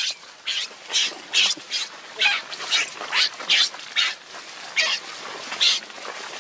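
Infant macaque crying in short, high-pitched screams, about two a second, a distress call as its mother drags it over the ground.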